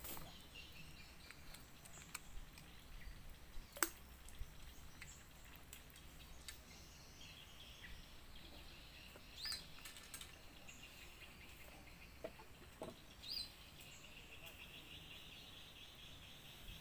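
Faint riverside ambience: a bird gives a few short high chirps over a faint steady high drone, with a handful of small sharp clicks, the sharpest about four seconds in.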